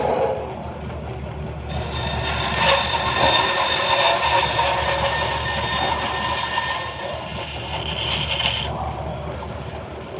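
A workshop machine starts up about two seconds in, runs with a steady high whine over rushing noise for about seven seconds, then cuts off.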